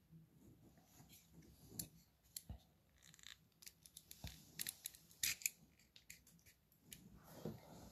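Faint, irregular small sharp clicks and snips, several a second in the middle, as of something being handled or cut by hand at a table.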